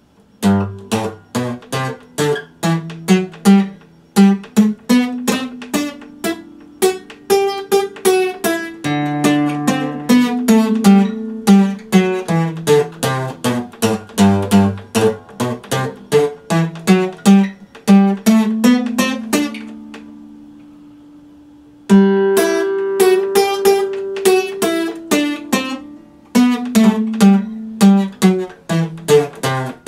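Epiphone acoustic guitar played solo, chords and single notes picked in a quick, even rhythm. About twenty seconds in a chord is left ringing and fades for a couple of seconds, then the playing starts again.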